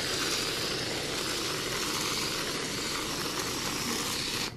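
Aerosol can of whipped cream spraying onto a plate: a steady hiss that cuts off sharply near the end.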